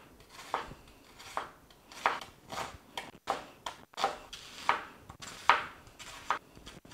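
Chef's knife dicing an onion on a plastic cutting board: a run of sharp chops, about two a second.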